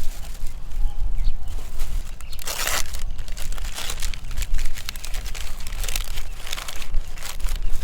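Irregular crinkling and clicking handling sounds over a steady low rumble, with a louder rustle about two and a half seconds in.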